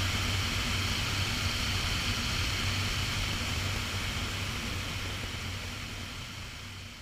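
Steady rush of airflow and jet engine noise from an Aero L-39 Albatros jet in flight, heard from a camera mounted on the aircraft, with a low hum under the wind noise. The sound fades out gradually over the last couple of seconds.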